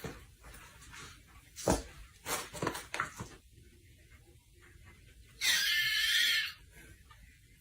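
A few knocks and rustles, then an animal's single high-pitched, wavering cry lasting about a second.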